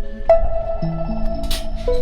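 Background music: a slow melody of plucked notes, each starting sharply and ringing on, with a brief shaker-like hiss about one and a half seconds in, over a low rumble.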